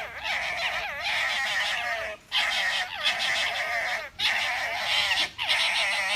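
Two red foxes squabbling jaw to jaw, one on its back, in long bouts of high, wavering, warbling cries broken by three short pauses: the gekkering of a fox play-fight or dispute.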